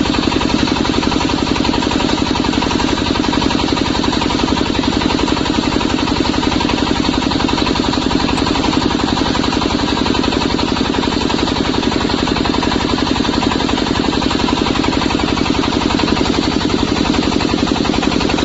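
The 25 HP diesel engine of a portable water well drilling rig running steadily at constant speed, a rapid even chugging with no change in pace.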